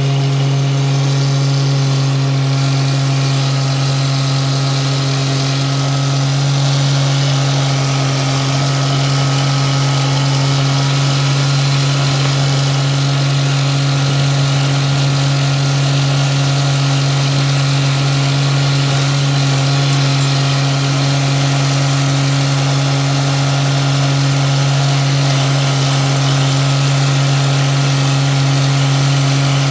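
John Deere 1025R compact tractor's three-cylinder diesel engine running at a steady speed as the tractor is driven, a constant low drone that does not rise or fall.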